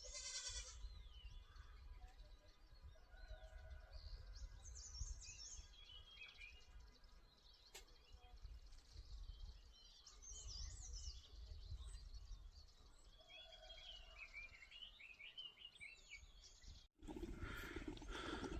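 Several small birds singing faintly, overlapping chirps and quick trills in a morning chorus, over a low rumble. The sound drops out briefly near the end.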